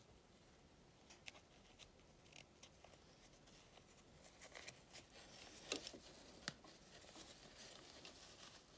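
Near silence with faint rustling and small clicks from fabric and elastic being handled by hand, with two sharper clicks a little past the middle.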